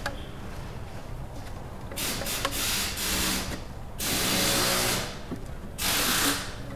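A hand-held power tool run in four short bursts of half a second to a second each.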